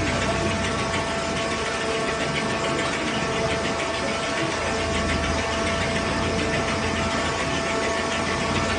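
Two-shaft scrap shredder with hydraulic drive running empty: a steady machine hum with a constant whine, with no shredding impacts yet.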